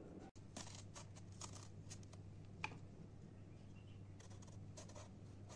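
Small knife peeling the skin off an eggplant: two runs of faint crisp scraping cuts, with one sharp tick midway, over a low steady hum.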